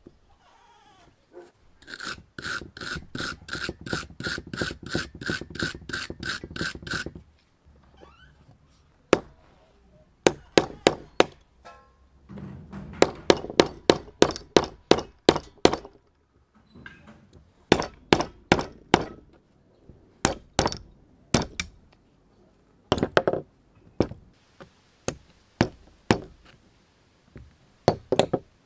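A metal tool scraping old, very thick grease out of the gears and rusty housing of an antique hand drill. It starts with a quick even run of scrapes, about three a second with a ringing tone, then comes sharp scratching clicks in short bursts. The hardened grease is what kept the drill from turning.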